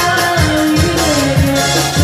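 Modern dero dance music playing loud over a sound system, with a steady low beat about twice a second under a sustained melody line.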